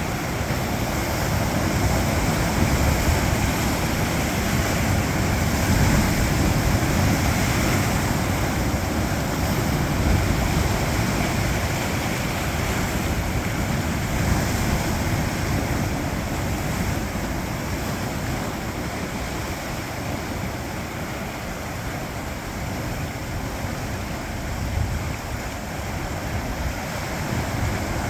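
Sea waves breaking against and washing over coastal rocks: a continuous heavy rush that swells and eases every few seconds, softer for a while past the middle and building again near the end.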